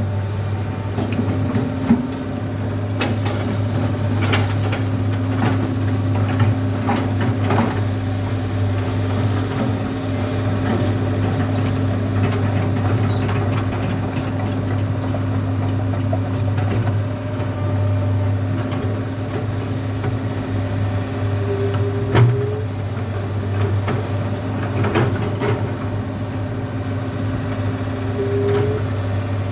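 Komatsu PC200 hydraulic excavator's diesel engine running steadily under load, with scattered knocks and clatter as it digs gravel.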